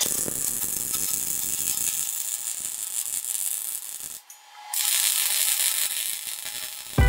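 MIG welding arc crackling steadily as a bead is laid. It stops abruptly about four seconds in and restarts half a second later.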